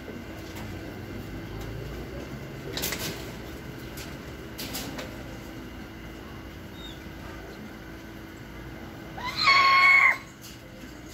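A small owl gives a single short, high-pitched call near the end, under a second long with a slight rise at the start. A steady low hum and two faint knocks come before it.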